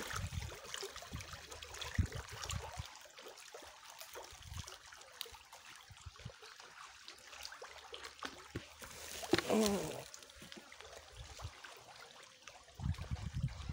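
Water trickling at the edge of a fish pond, with scattered small clicks and splashes. There are low bumps near the start and near the end, and a brief voice-like sound about nine seconds in.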